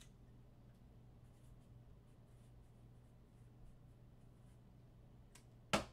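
Faint room tone with a steady low hum and a few light scratchy ticks, then a single sharp click near the end.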